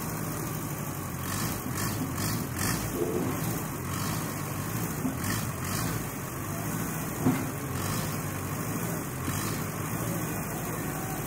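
Allis-Chalmers D15 tractor engine running steadily at low speed as the tractor inches along a seesaw balance-beam ramp, with a short knock about seven seconds in.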